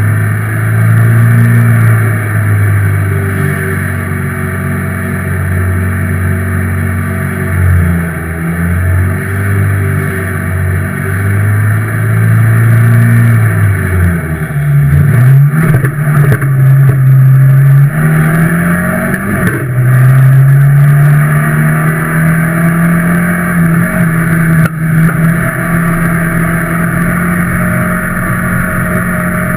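A ministock race car's engine idling at a steady pitch, heard from inside the cockpit. About halfway through it revs down and up, then climbs as the car pulls away and settles to a steady higher note while driving.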